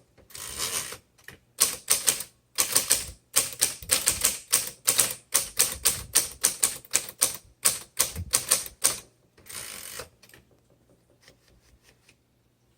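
1960s Smith Corona Galaxie manual typewriter being typed on: fast runs of sharp key and typebar strikes, with a longer rasping sound near the start and another about ten seconds in. The typing stops after that, leaving a few faint clicks.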